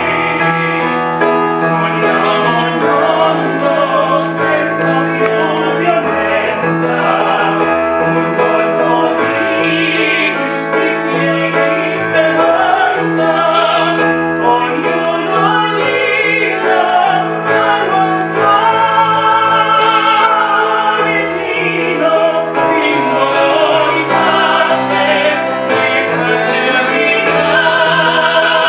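A hymn sung by a man and a woman over a microphone, with steady instrumental accompaniment.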